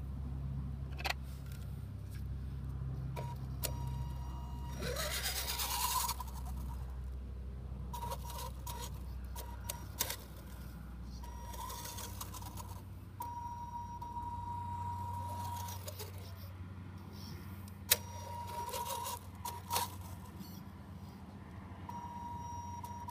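Radio-controlled car driven in short spurts on concrete: a steady motor whine that comes and goes as the throttle is applied and released, rising and falling in pitch a few times, with a few sharp clicks.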